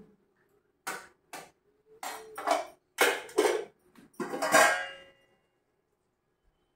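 Steel kitchen vessels and utensils clinking and clanking as rice is scooped into a pot and a steel lid is set on it. The knocks come one after another, growing louder, and the loudest rings briefly.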